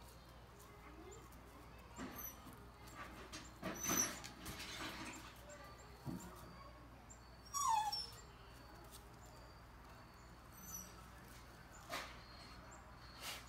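A few short, high animal whines and squeaks spaced a few seconds apart, one sliding down in pitch about halfway through, with faint brief high chirps between them.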